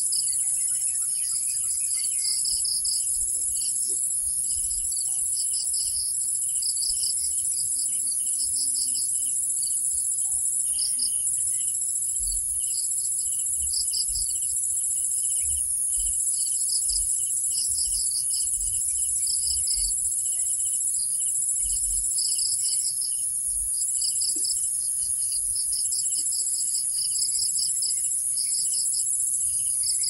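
Evening insect chorus: a steady high-pitched shrill with many short chirps repeating in clusters over it, typical of crickets.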